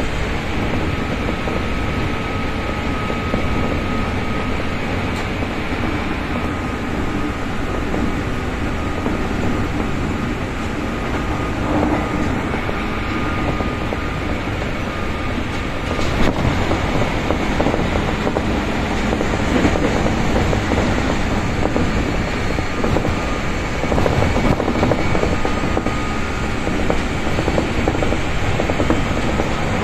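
Running noise inside a JR 203 series electric multiple unit motor car travelling at speed: a steady rumble of wheels on rail and traction motors, with a faint steady whine in the first few seconds and a sharp knock about halfway through.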